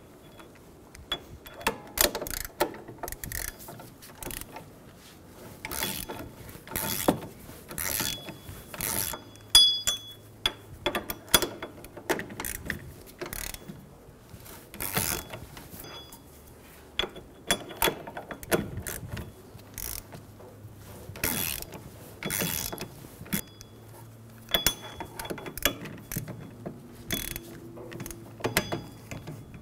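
Hand ratchet with a 14 mm socket clicking in short, irregular bursts as the wheel bearing bolts are backed out, stopping and starting between strokes.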